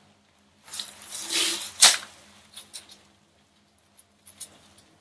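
Gloved hands working over a paper drape: a rustle as a saline-soaked cotton wool ball is wiped downwards, then a sharp click just under two seconds in, followed by a few faint ticks.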